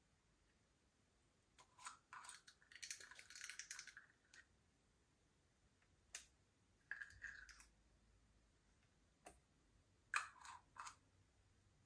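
Slime being worked by hand, giving short sticky clicks and pops and a longer crackly stretch about two to four seconds in.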